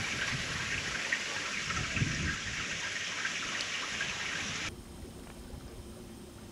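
Steady hiss of water that cuts off abruptly about five seconds in, leaving a quieter background with a faint steady hum.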